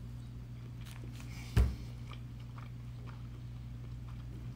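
A person chewing a mouthful of fried rice, with faint small mouth clicks over a steady low hum. One sharp thump sounds about one and a half seconds in.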